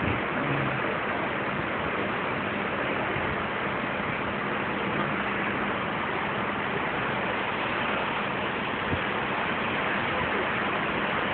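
Steady rushing noise of the sea churning along a moving cruise ship's side and wake, with a faint steady hum underneath.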